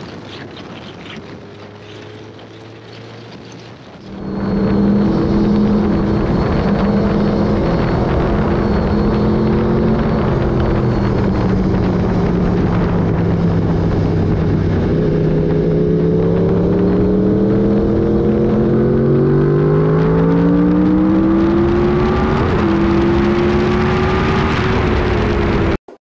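Inline-four sportbike engine at road speed, recorded on the bike. It runs moderately for the first few seconds, then gets much louder from about four seconds in. Its note dips, then climbs steadily in pitch as the bike accelerates hard, over a rush of wind.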